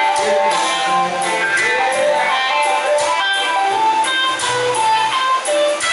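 Live band music carried by strummed guitar, with a steady beat.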